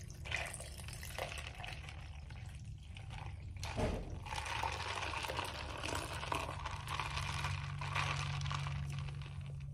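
Canned root beer poured into a plastic cup over ice: a steady splashing pour that gets louder from about four seconds in, with a single knock just before.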